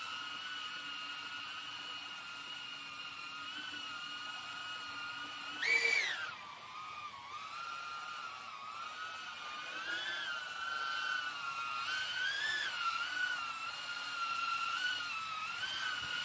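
Small quadcopter's EMAX ECO II 2004 3000KV brushless motors and 3-inch props whining steadily in a hover, with a brief loud throttle surge rising in pitch about six seconds in, then the pitch wavering up and down through the second half.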